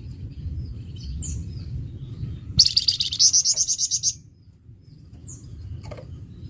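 A flamboyan songbird singing: a few short, high chirps and, about two and a half seconds in, a loud, fast trill of about ten notes a second lasting a second and a half, in the harsh, vigorous song that Indonesian keepers call gacor kasar. A low rumble runs underneath.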